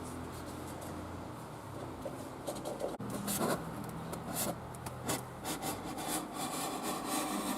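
Hand-cutting into a container lid: irregular scraping, rasping strokes that begin a couple of seconds in.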